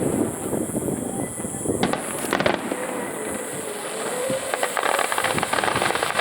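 Aerial fireworks going off, a dense run of crackling and popping from bursting shells that thickens in the second half, with a faint wavering tone underneath.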